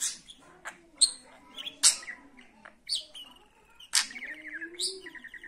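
Pet budgerigar chirping and chattering: sharp high chirps about once a second, with a buzzy warble near the end.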